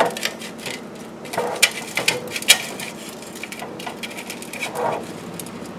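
Slotted metal fish spatula scraping and clicking against an air fryer's basket as it is worked under breaded fish fillets to flip them: a run of irregular scrapes and clicks, the sharpest about two and a half seconds in.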